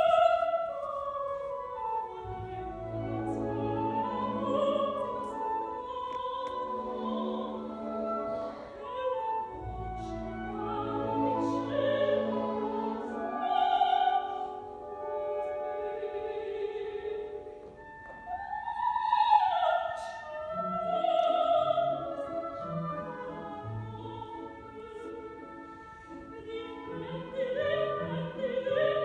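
Live opera: singers with orchestral accompaniment, heard from the audience in a theatre.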